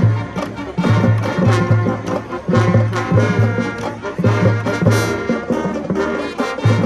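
High school marching band playing a brass-led tune, with a repeating low bass figure under the horns and drums.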